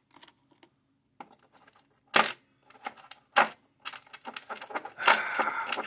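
Small steel parts of a thrust ball bearing clicking and clinking as the ball cage and race are fitted onto a leadscrew shaft, with a short jingling rattle near the end.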